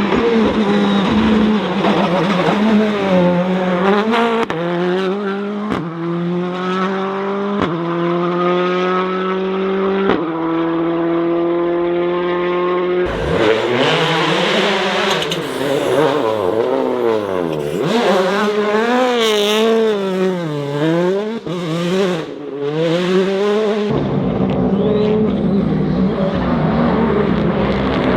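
Rally car engines at full throttle. First one car accelerates hard up through several gears, its pitch climbing and dropping sharply at each shift. After a cut, an engine is revved up and down rapidly, on and off the throttle.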